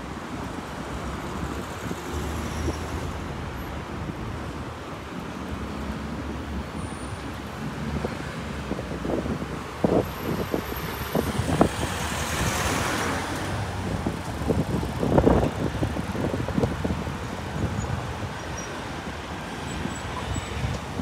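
Steady city road traffic: cars and trucks running past, with one vehicle swishing by a little past halfway and a few short low thumps around the middle.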